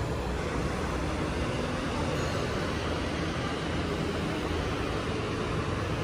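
Steady low rumble and hiss of background noise with no distinct event.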